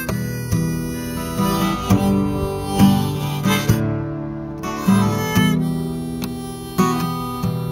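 Acoustic guitar strummed in a steady rhythm under a Lee Oskar harmonica in the key of G playing the melody.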